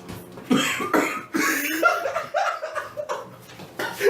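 A man coughing hard in a run of coughs, with strained vocal sounds between them, his throat burned by extremely spicy instant noodles. The coughing starts about half a second in.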